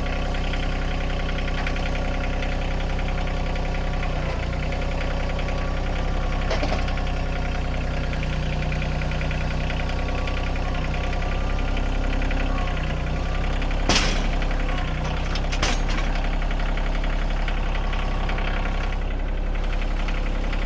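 A sawmill's engine running steadily, with a sharp knock about two-thirds of the way through and another shortly after.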